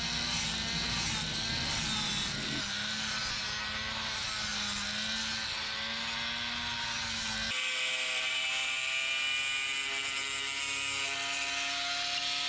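A small electric power tool's motor running steadily with a held whine. Its pitch and tone change abruptly about seven and a half seconds in.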